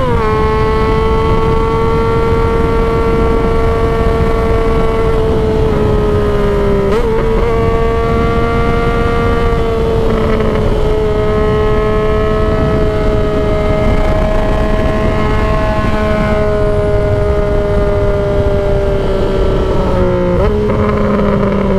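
Yamaha XSR900's inline-three engine running at steady high revs through a nearly straight-piped aftermarket exhaust. The pitch briefly breaks and jumps at gear changes near the start, about seven seconds in and near the end, over a steady rush of wind noise.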